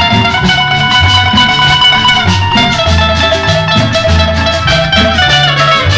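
Guaracha-style tropical dance music with a lead guitar carrying long held melody notes over a repeating bass line and percussion.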